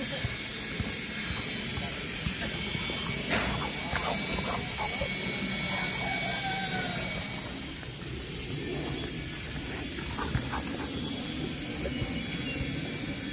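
Indistinct, distant voices over a steady high-pitched hiss and a low rumble.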